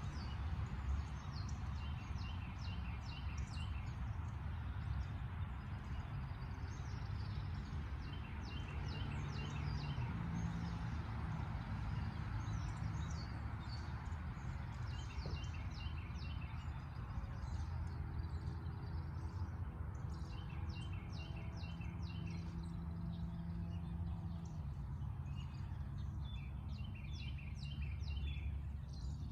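Songbirds singing at dawn: many short high chirps, with one bird repeating the same short phrase about every five or six seconds. A steady low rumble runs underneath.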